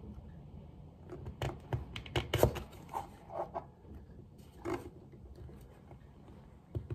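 Close handling of a soapy rubber carburettor diaphragm as the edge of a plastic card presses its bead into the piston's groove: a few sharp clicks and short rubbery squeaks.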